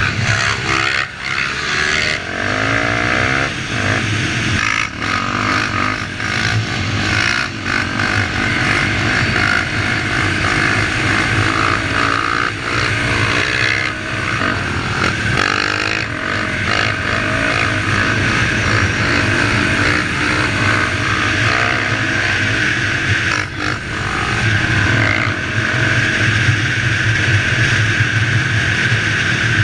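Enduro motorcycle engine running under way, its revs rising and falling over and over as the rider opens and closes the throttle, with brief drops in loudness at the gear changes.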